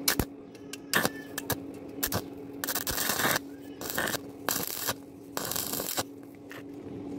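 Stick-welding arc on thin 1 mm square steel tube, struck in several short bursts of crackling hiss, each under a second, while a burnt-through hole is filled with a separate filler rod. A few sharp clicks come before the first burst, and a steady low hum lies underneath.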